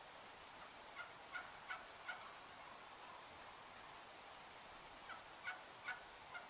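Wild turkeys calling: two series of four short notes each, about three a second, one a second in and another near the end, over faint outdoor hiss.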